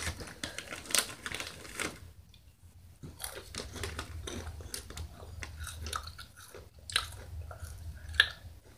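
Crunchy chips being chewed with an open mouth close to the microphone: irregular sharp crunches and crackles, with a short lull about two seconds in.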